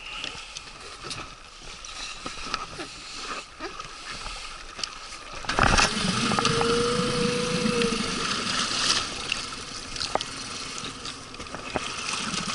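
Suzuki outboard motor starting up about halfway through, then running steadily at idle. Light knocks and clicks of gear being handled in the inflatable boat come before it.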